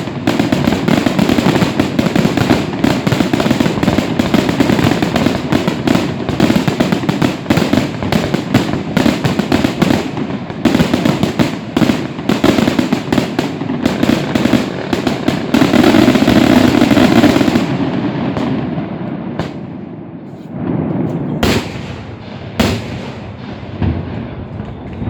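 Fireworks display: a dense, continuous barrage of bangs and crackling that thins out about three quarters of the way through, leaving a few last single bangs near the end as the show closes.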